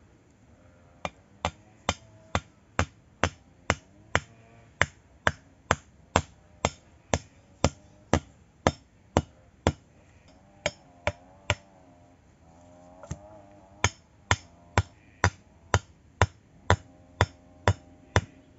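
Wooden stake being driven into the ground with blows from a small hand tool: sharp, evenly spaced knocks about two a second, breaking off briefly past the middle and then resuming.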